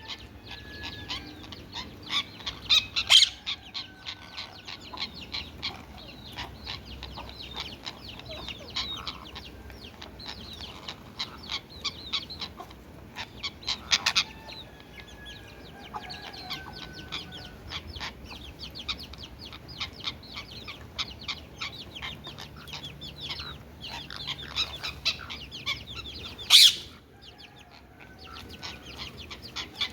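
Birds chattering: rapid, dense chirping and clucking-like calls, with three louder, sharper calls a few seconds in, midway and near the end.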